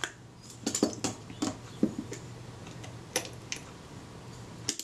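Small metal camera parts clicking and tapping as the Kodak Retina IIIc's film-advance shaft and its spring are worked by hand and with a small tool, trying to seat the spring in its slot. A handful of sharp, irregular clicks.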